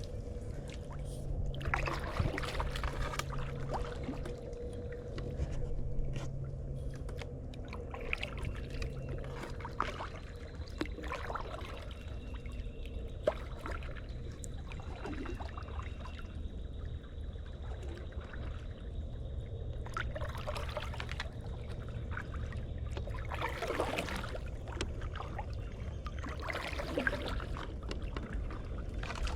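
Kayak paddle strokes in creek water: irregular splashes a few seconds apart, with water trickling off the blades, over a steady low hum.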